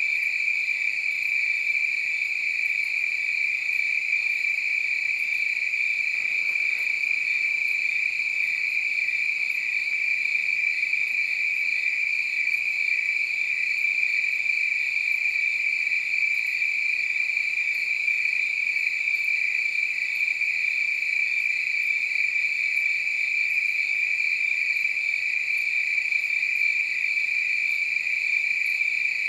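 A chorus of crickets chirping, a dense, unbroken trill on one steady high note.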